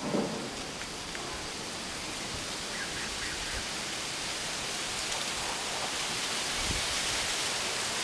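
Wind rushing through the trees and over the microphone: a steady noisy hiss that slowly swells, with a low buffeting thump right at the start.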